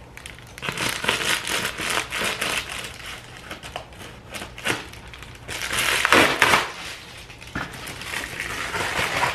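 Scissors snipping through a padded Amazon mailer with sharp clicks, then the mailer and its packing crinkling loudly as it is torn open and the contents pulled out, loudest about six seconds in.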